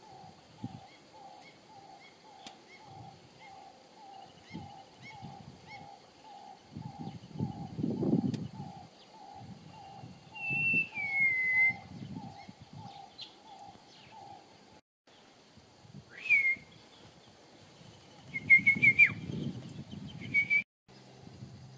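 Wild birds calling: one repeats a low note about twice a second, stopping about fifteen seconds in, while others give occasional falling whistles. Two stretches of low rumble come about eight and nineteen seconds in.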